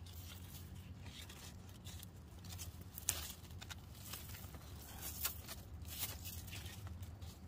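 Cucumber vines and dry, yellowed leaves rustling and crackling as a hand grips and pulls at them, in a run of short crisp snaps and rustles, the sharpest about three seconds in.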